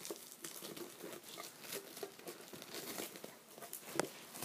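Plastic packaging crinkling and tearing as the tin is unwrapped by hand, a fairly faint run of small crackles, with one sharper click about four seconds in.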